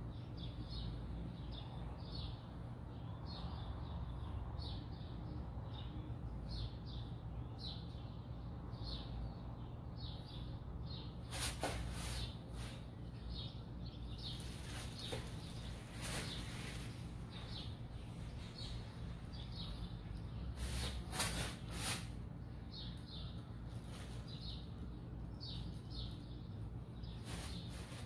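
A bird chirping over and over, one short call about every second, over a steady low hum. A few sharp knocks or clacks come about midway and again near the end.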